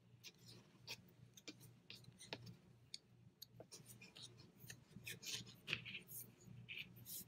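Faint, irregular clicking and rubbing of wooden double-pointed knitting needles and super bulky yarn as stitches are knitted.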